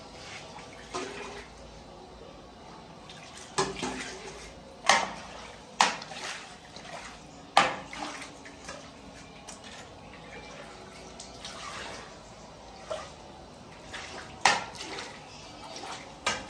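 Water splashing and sloshing, broken by about half a dozen sharp knocks and clatters, the loudest about five, six, eight and fourteen seconds in.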